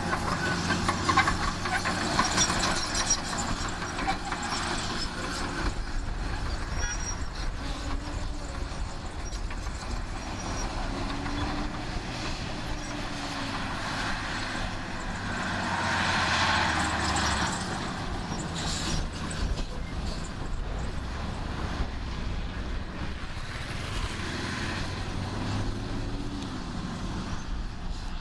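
Heavy diesel earth-moving machinery running steadily, with the engine noise swelling louder for a couple of seconds around the middle.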